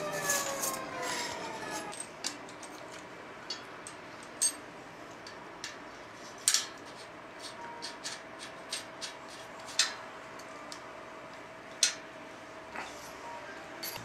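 Shimano cassette sprockets being fitted by hand onto a bicycle rear hub: scattered sharp metallic clicks over a faint rubbing of steel on steel.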